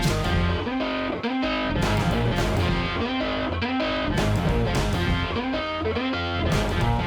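Background music: rock with distorted electric guitar and a steady beat.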